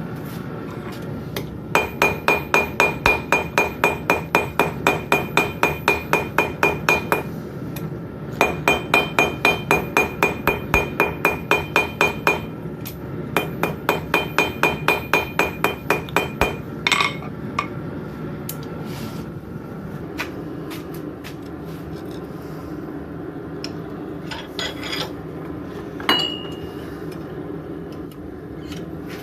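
Blacksmith's hammer forging on an anvil: three runs of steady, rapid blows, about three a second, each with a high ring. Afterwards come a few scattered clinks and one ringing strike near the end, over a steady low hum.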